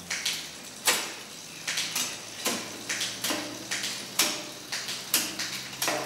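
Mountain bike drivetrain turned by hand in a work stand: the chain runs over an 11-speed 11-50 wide-range cassette (VG Sport / Ztto) with sharp clicks, roughly one to two a second, as it shifts from cog to cog.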